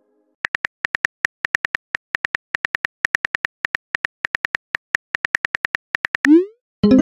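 Simulated phone-keyboard key clicks from a texting-story app as a message is typed out, a quick run of about seven taps a second. Near the end a short rising swoosh marks the message being sent, and then a ringing tone begins.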